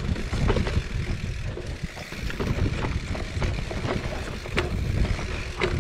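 Mountain bike riding fast down a dirt singletrack: tyres rolling over the trail, with frequent short knocks and rattles from the bike over bumps, under a steady low rumble of wind on the microphone.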